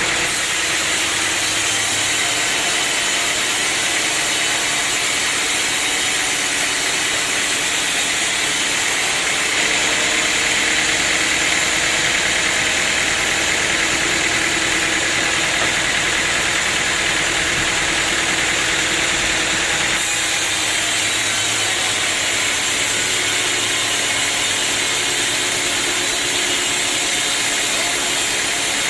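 Sawmill machinery running steadily, an engine-driven saw and its drive, with the sound shifting abruptly twice.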